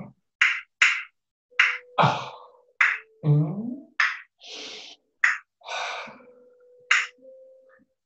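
A man vocalising the dynamics of a dance movement: a string of about a dozen short, sharp hissed and breathy sounds, two of them drawn out, with a voiced, gliding 'ha'-like sound about three seconds in.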